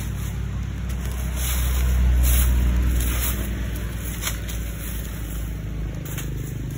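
A loud, steady low rumble that swells about two seconds in and eases off, with a few brief crackles of dry leaves and plastic being rummaged through by hand in a pile of rubbish.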